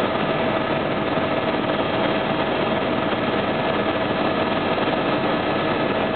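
Steady drone of a small helicopter's engine and rotors heard from inside the cabin, with a steady whine over the noise.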